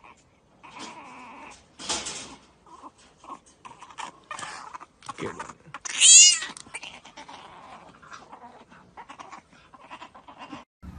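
A cat meowing and crying in short calls, the loudest a wavering yowl about six seconds in.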